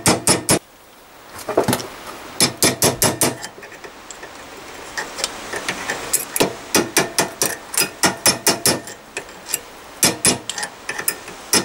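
Steel hammer blows on the steel rear suspension arm of a 1954 Panhard Dyna Junior, driving out its stuck inner needle-bearing race from behind. Sharp metallic strikes come in quick runs of several a second, with short pauses between runs.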